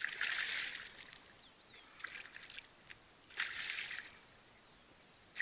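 Water splashing as a released tararira (trahira) thrashes at the surface in shallow water: three short splashes, at the start, about two seconds in and about three and a half seconds in.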